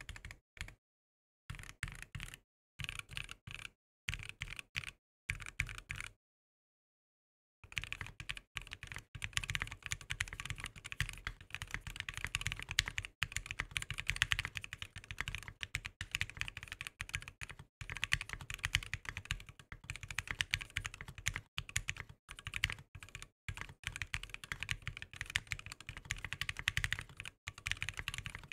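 Typing on a Bakeneko60 aluminium 60% mechanical keyboard with Korbs linear switches, cherry-profile PBT keycaps and EVA foam inside. A few short runs of key presses come in the first six seconds, then a brief pause, then continuous fast typing from about eight seconds in.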